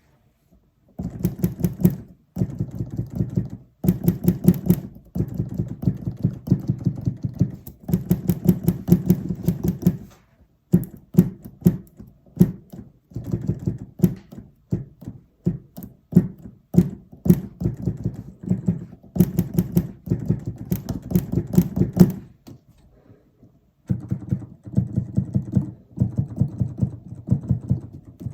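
Keys of a Native Instruments Komplete Kontrol S88 MK2 hammer-action keybed clacking under fast repeated playing, in runs of rapid strikes a few seconds long with short pauses and one longer pause near the end. The clicking is a fault in the new unit, loud enough to feel wrong while playing.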